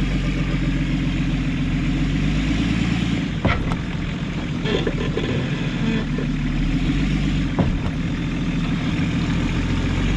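Nissan Patrol GR off-roader's engine running steadily at low revs as it crawls up a steep step, with two sharp knocks, about a third of the way in and again about three-quarters through.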